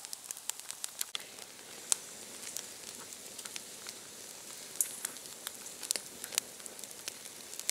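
Wood campfire crackling with irregular sharp pops over a steady hiss, as venison medallions sizzle on a wire grill rack over the embers.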